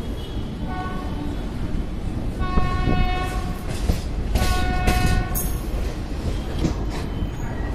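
Train running with a steady low rumble, its horn sounding in separate blasts: a faint short one about a second in, then two louder ones of about a second each.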